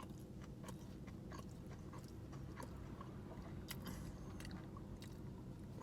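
Someone chewing a mouthful of bacon burger with onion strings: faint, irregular clicks and smacks of chewing over a steady low hum.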